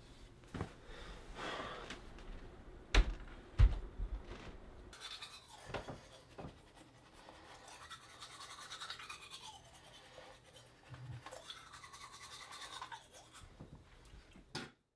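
Two sharp thumps about three seconds in, then a toothbrush scrubbing teeth in quick back-and-forth strokes for several seconds.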